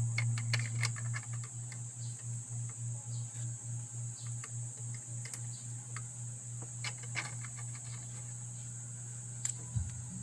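Scattered small clicks and taps from handling wires and small electronic parts by hand, over a steady low hum that pulses a few times a second and a faint steady high whine.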